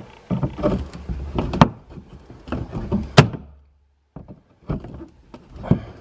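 A forked pry tool working a plastic plug-type body clip out of a pickup's plastic wheel-well liner: a series of sharp clicks and knocks of the tool against the clip and panel, with a short silent gap about three and a half seconds in.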